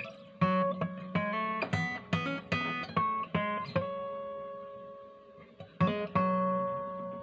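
Martin DX1 acoustic guitar with a solid spruce top, played as a tone test: a quick run of strummed and plucked chords, then a chord left to ring down. One more strum comes about six seconds in and rings on.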